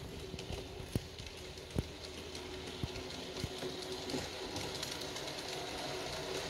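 Hornby LNER J15 model steam locomotive running on OO track with a steady electric-motor hum, with a few sharp clicks in the first half, getting slightly louder toward the end as it approaches.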